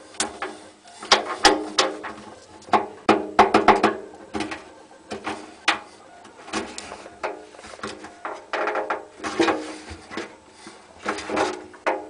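Hotpoint Ultima WT960 washing machine drum squeaking as it turns: short, pitched squeaks come several a second in uneven bursts.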